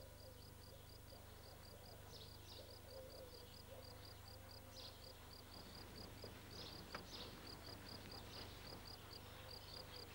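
Faint, steady chirping of an insect, about four or five chirps a second, over a low hum, with a single sharp click about seven seconds in.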